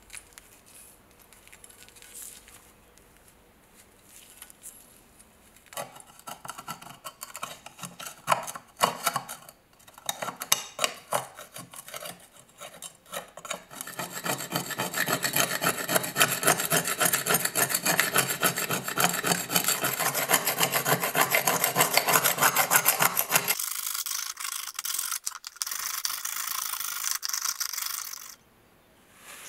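Metal scraper grinding thick rust crust off a rusty Austrian M17 trench knife blade by hand. After a few seconds of faint handling, scattered scraping strokes start, then turn into fast, continuous rasping that thins to a higher, lighter scrape near the end.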